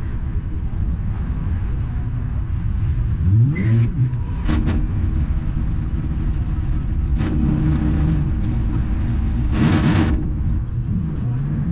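A motor vehicle's engine running with a steady low rumble. There are a few brief, louder noisy surges, the biggest about ten seconds in.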